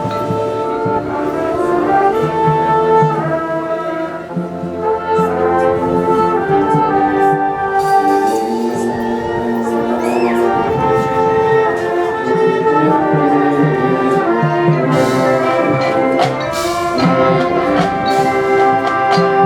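High school marching band playing, its brass section sounding held chords and moving lines, with a few sharp percussion hits about three-quarters of the way through.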